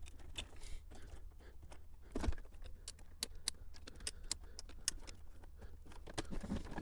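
Light plastic clicks and rattles from the Mercury Mountaineer's center dash bezel being handled and worked free, with one louder knock a little over two seconds in.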